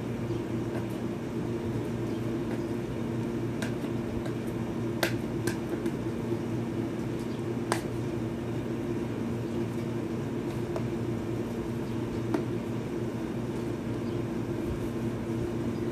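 Hands working at a tight-fitting cardboard smartphone box that is hard to open, with a few scattered sharp clicks and taps of fingers and nails on the box. A steady low hum runs underneath.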